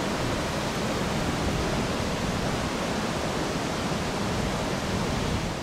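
Steady rushing of fast glacial meltwater from a waterfall or river, an even roar with no single events in it.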